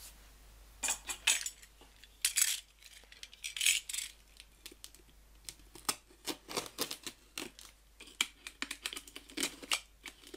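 Snap-off utility knife cutting the packing tape on a cardboard box: a few short scraping strokes, then many small sharp clicks and taps.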